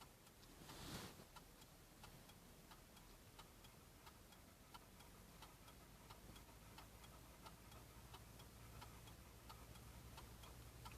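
Near silence with faint, even ticking, about two ticks a second, and a brief soft rush of noise about a second in.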